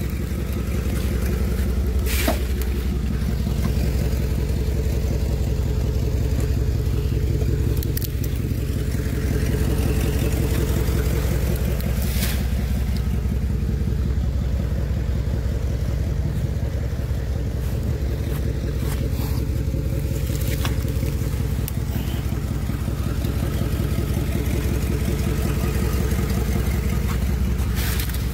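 Chevrolet Z71 pickup truck's engine idling steadily, with a few brief sharp clicks now and then.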